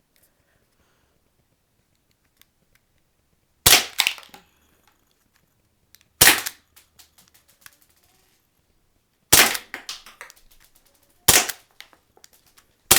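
HFC HG-107 Colt .25 green-gas non-blowback airsoft pistol firing five single shots, one every two to three seconds. Each shot is a sharp pop trailed by a few fainter ticks.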